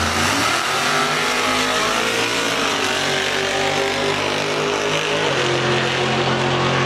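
Two drag-racing vehicles, an old pickup truck and a coupe, launching and accelerating hard down the strip, their engine pitch rising and falling and then holding steadier for the rest of the run.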